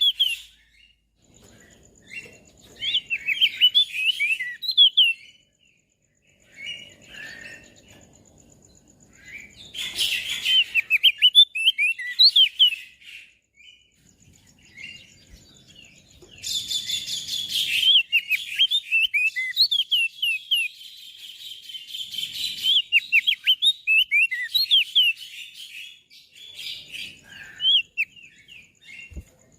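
Crested dark-eye (opior jambul) singing: quick runs of high, chirping notes in phrases of a few seconds separated by short pauses. Two brief rushing hisses break in, about ten seconds in and again a little past halfway.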